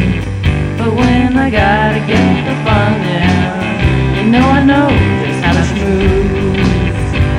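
Blues-rock band playing an instrumental outro: a lead guitar with bent, sliding notes over a drum beat.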